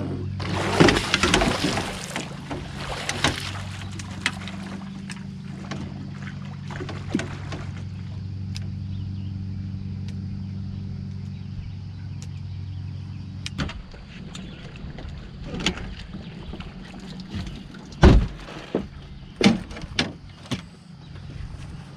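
A hooked blue catfish being fought to the boat, splashing in the first few seconds, over a steady low hum that cuts off suddenly about two-thirds of the way through. Then scattered knocks against the boat, with one loud thump near the end as the landing net is handled.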